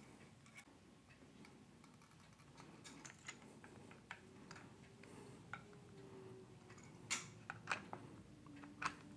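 Faint scattered clicks and ticks of small rifle parts handled in the fingers: the magazine tube plug and spring of a lever-action rifle being fitted back by hand, with a few sharper clicks past the middle.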